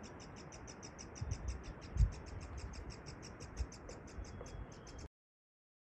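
An insect chirping in a fast, even pulse, about seven chirps a second, with a few low thumps, the loudest about two seconds in. Everything cuts off abruptly about five seconds in.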